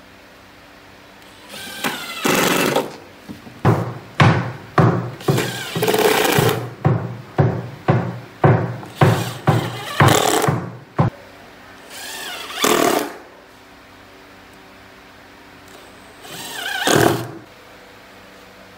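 Cordless impact driver driving screws into plywood cabinet panels: a run about two seconds in, then a quick series of about a dozen short bursts, and two more runs near the middle and near the end.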